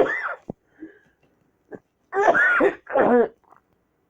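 A person coughing and clearing their throat in harsh voiced bursts: one at the start, then two in quick succession about two seconds in.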